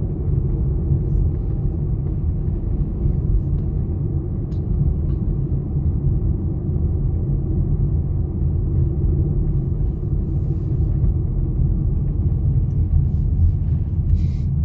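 Car driving along a paved road: a steady low rumble of engine and tyre noise.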